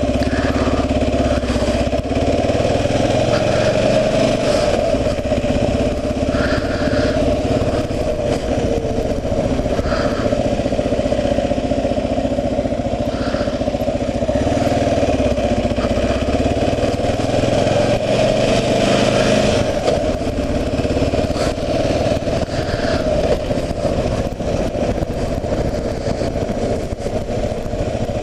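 2009 Kawasaki KLR 650's single-cylinder engine running steadily while riding, heard through the GoPro's case on the rider's helmet.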